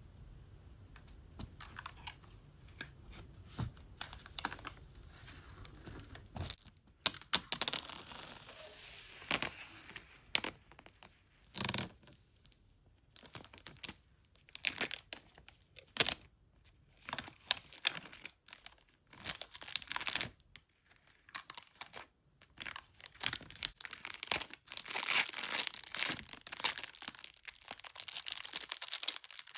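Packaging paper and wrapping being torn and crinkled by hand, in irregular rustling bursts with short pauses between them.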